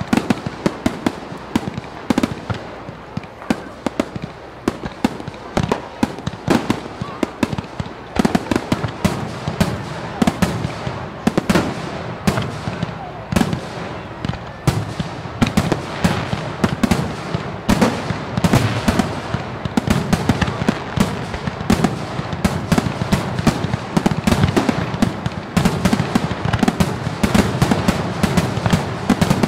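Fireworks display: a dense, continuous barrage of shell bangs and crackling, many reports a second with no break.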